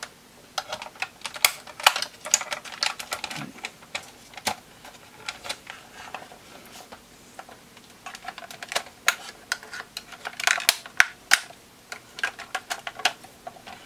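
Plastic snap clips and housing of a car heater control unit clicking and creaking as the cover is prised off by hand. The clicks are irregular, with busier flurries about two seconds in and again near the end.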